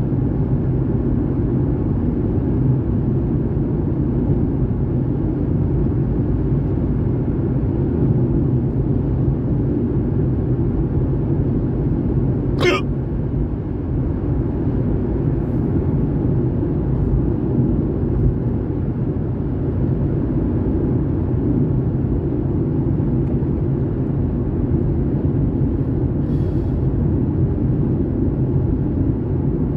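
Steady rumble of road and engine noise inside a moving car, with a single sharp hiccup about halfway through.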